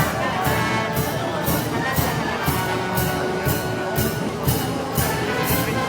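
Brass band playing festival march music outdoors, with held brass notes over a steady beat of drums and cymbals about two strokes a second.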